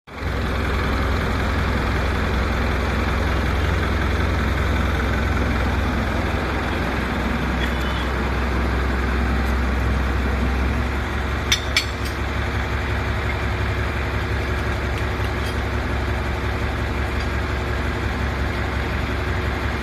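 Steady machinery noise with a heavy low hum, and two sharp clicks about halfway through.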